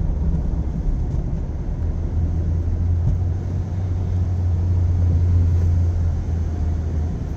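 Sonny's tunnel car wash equipment working over the car, heard from inside the cabin: a steady low rumble under a hiss of spray, the rumble strongest from about two seconds in until near the end.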